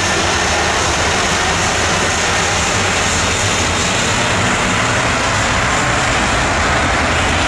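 Airbus A320-family twin-jet airliner on its takeoff roll, its engines at takeoff thrust giving a loud, steady jet roar.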